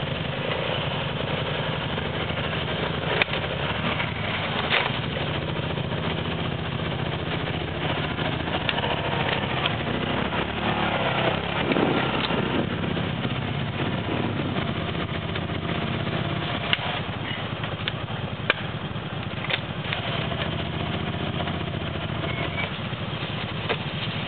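Quad bike (ATV) engine running steadily at low revs, with a brief swell in the middle and a few sharp clicks and knocks.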